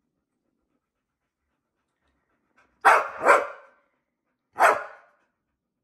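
A pit bull barking three times, about three seconds in: two quick barks close together, then one more a second and a half later.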